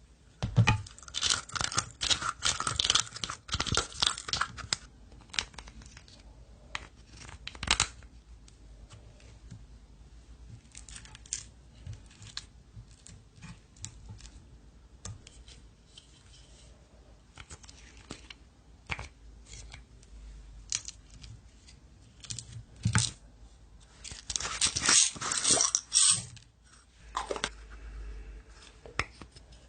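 Slime being handled: wet crackling and popping clicks, in a dense burst from about half a second to five seconds in and again near the end, with scattered single clicks between.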